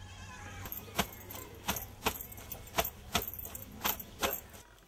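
Clothes being washed by hand: wet cloth scrubbed against a stone washing slab in a steady run of strokes, about three a second.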